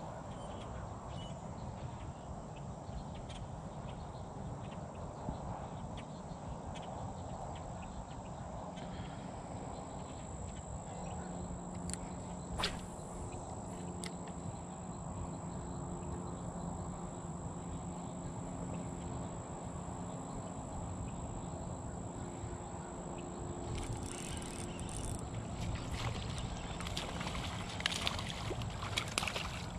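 Steady outdoor background noise with a faint hum through the middle, then splashing from a hooked small bass thrashing at the water's surface as it is reeled in, in a run of sharp splashes over the last few seconds.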